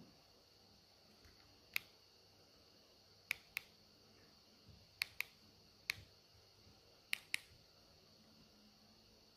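Buttons on a projector's remote control being pressed by fingers: eight sharp clicks, mostly in quick pairs. The first comes about two seconds in, and the last pair near the end.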